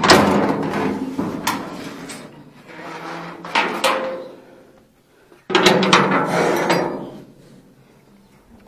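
Rusty sheet-steel gate being opened by hand: loud metal clanks and rattles from the latch and the gate panel. The loudest clank comes at the start and another about five and a half seconds in, and the clanks die away near the end.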